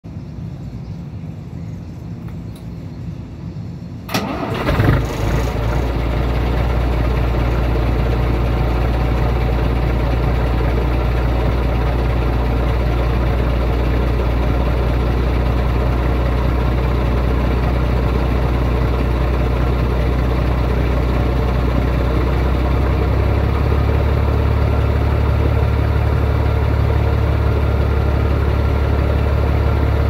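Scania 111 truck's diesel engine on its first cold start of the day: cranking for about four seconds, catching with a loud burst, then settling into a steady idle whose note shifts slightly about 23 seconds in. The idle carries the air compressor that the owner says is making a strange noise.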